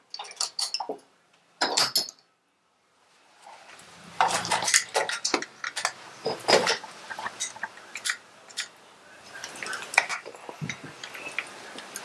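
Irregular metallic clinks and taps of a hand wrench and small hardware against a motorcycle's frame and ignition coil bracket as the coil is unbolted, with a short lull about two seconds in.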